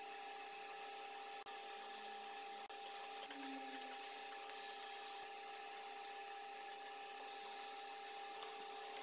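Steady faint hiss with a constant hum. A few faint light clicks come near the end, as pliers bend the toaster's sheet-metal holders.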